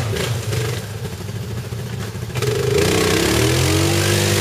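ATV engines running; about two and a half seconds in, one revs up, its pitch rising, and then holds a higher, steady note.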